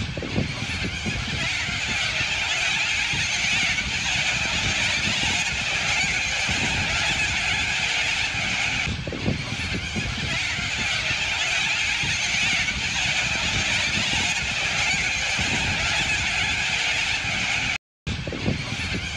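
A huge flock of white cockatoos screeching all at once: a continuous wall of overlapping calls that breaks off for a moment near the end.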